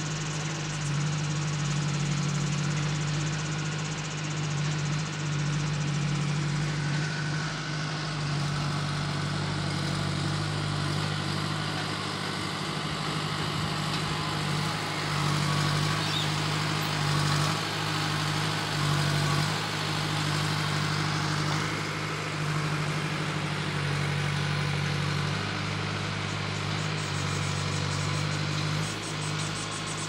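JCB backhoe loader's diesel engine running steadily, a low even hum that swells and eases slightly now and then.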